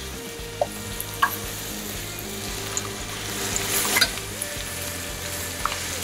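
Chicken thighs sizzling in hot olive oil in a skillet, with a few light clicks of metal tongs as the pieces are moved.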